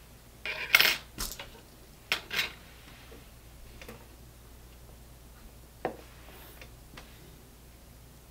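Small hard jewellery-making pieces clinking and tapping as they are handled on a table. There is a quick cluster of sharp clinks about half a second in, a pair just after two seconds, then a few lighter ticks.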